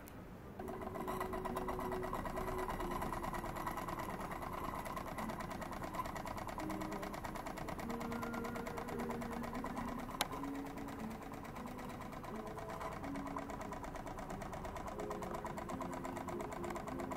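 Live-steam model of Henri Giffard's airship steam engine (10 mm bore, 20 mm stroke) running fast with its large three-blade airscrew. It makes a rapid, even mechanical chatter that comes in about a second in and then holds steady, with one sharp click midway.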